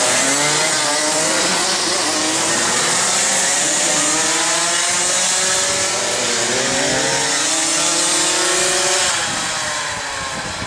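Several racing kart engines running hard together as the karts pass, their pitches rising and falling as they brake and accelerate through the corner, over a steady high hiss of spray off the wet track. The engines fade a little near the end.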